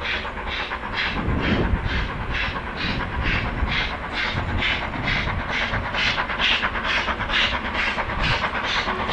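Stanier Black Five 4-6-0 steam locomotive, two-cylinder, working hard up a gradient: a loud, even exhaust beat at about three chuffs a second.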